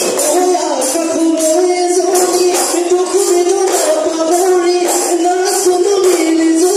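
Live Assamese Bihu music: dhol drums and jingling percussion beat a fast, even rhythm under a held, wavering melody line.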